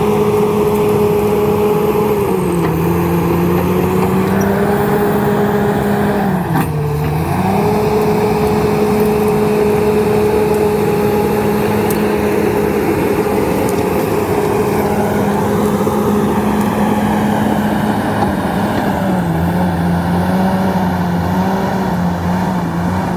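Komatsu D68ESS bulldozer's diesel engine running at steady high revs, its pitch sagging briefly under load about two and a half seconds in, around seven seconds in, and again near the end as it pushes through brush. A single sharp crack sounds about seven seconds in.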